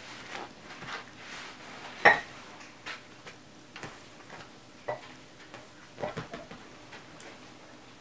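Scattered light clicks and knocks from a Shiba Inu puppy scrambling about and playing with a person's hand, with a sharper knock about two seconds in and smaller ones near five and six seconds.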